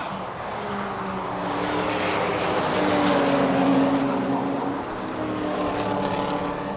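Racing car engine at speed passing on the track, swelling to its loudest about halfway through and then easing off.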